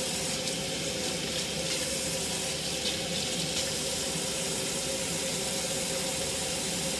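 Kitchen faucet running steadily into a stainless steel sink, with water splashing over hair and hands held in the stream.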